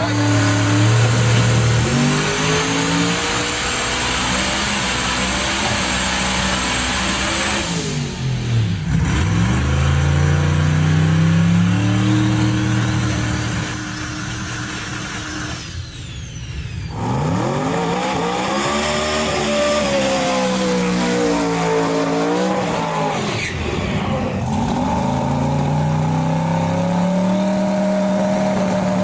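Engine of a turbocharged 3,500 hp Dodge Viper drag car revving and running, in several short clips. The pitch climbs, drops and climbs again. Near the end it settles into a steady high run.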